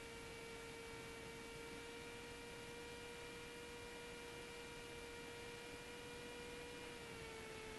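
Faint steady whine with overtones over a hiss, in the Cessna 172's headset intercom audio. The pitch dips slightly near the end.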